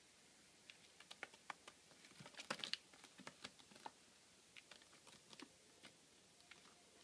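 Faint, scattered clicks and scratches of a Bengal kitten playing, clawing at a sisal scratching post and batting a hanging pompom toy, with a busier flurry about two and a half seconds in.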